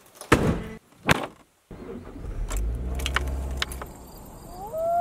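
Two short, loud swishing noises, then a low rumble with a few clicks. Near the end a rising electronic tone levels off into a steady note: an intro logo sting.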